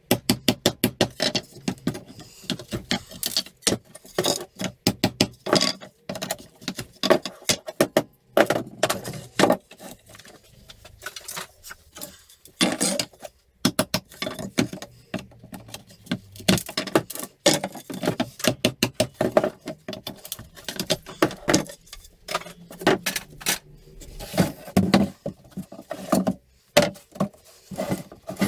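Hammer knocking on pallet wood slats as a pallet is broken down: runs of quick, sharp taps with short pauses between them.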